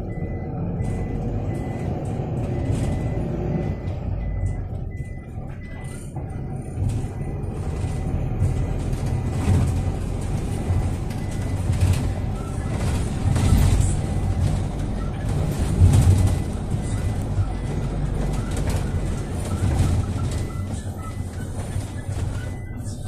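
Cabin noise inside a 2019 Toyota Coaster minibus as it drives off and picks up speed: a steady engine and road rumble with small rattles. A faint steady high whine runs through it.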